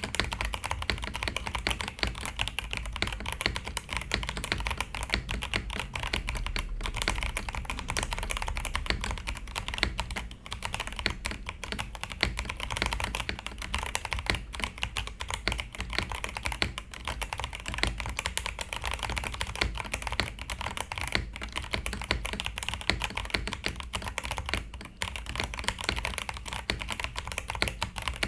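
Attack Shark K86 mechanical keyboard with Blue Whale switches being typed on quickly and continuously, a dense run of key clicks and clacks with a few short pauses.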